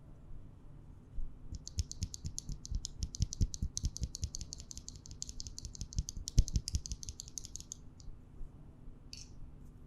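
Typing on a CherryB CB65 custom mechanical keyboard with an aluminium case and WS Onion switches. There is a fast, continuous run of keystrokes for about seven seconds, then a lone keystroke near the end.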